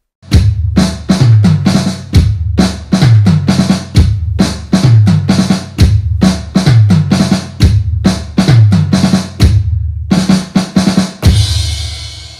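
Outro music: a loud, fast drum-kit beat of bass drum and snare, ending near the end in a cymbal crash that rings and fades.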